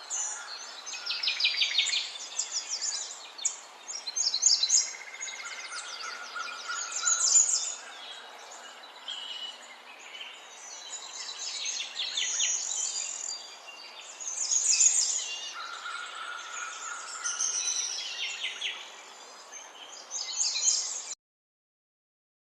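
Several birds chirping and singing, quick repeated chirps and trills over a steady background hiss; it cuts off suddenly near the end.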